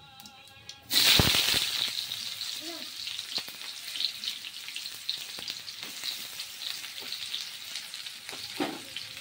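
Sliced onions hitting hot oil and cumin seeds in a steel kadhai: a sudden loud sizzle about a second in, settling into steady frying sizzle.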